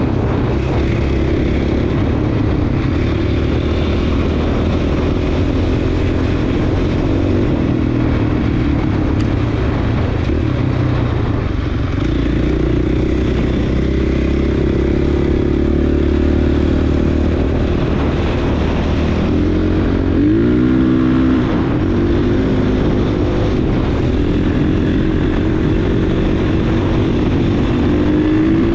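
Dirt bike engine running under way on a trail ride, steady for most of the stretch, with a few quick throttle dips and rises about two-thirds through and the revs climbing again near the end.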